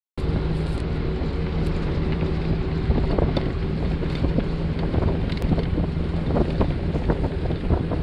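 Road vehicle in motion, heard from on board: steady engine hum and road noise, with wind buffeting the microphone and frequent small rattles and knocks.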